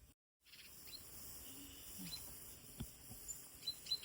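Faint outdoor ambience: a steady hiss with a few short, high bird chirps in the second half and a couple of soft knocks.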